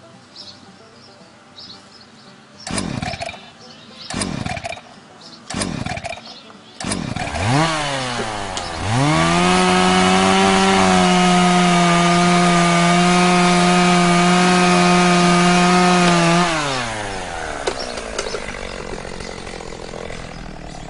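Two-stroke chainsaw pull-started with short tugs on the starter cord about a second and a half apart, catching on the fourth pull. It idles briefly, is revved to a high steady whine for about seven seconds, then drops back to idle.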